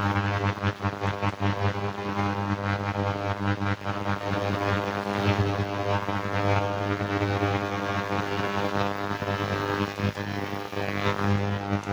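Ultrasonic cleaner running with a steady, loud mains-frequency buzz, cleaning a phone circuit board in its tank. Light clicks and taps of plastic phone housing parts being handled sound over it.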